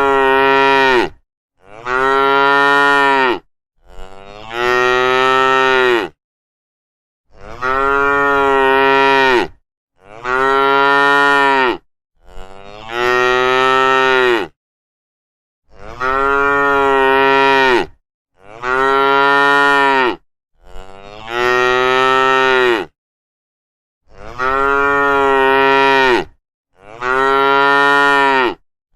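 Cattle mooing: long calls of about two seconds each, one after another in runs of three with a short silent pause between runs.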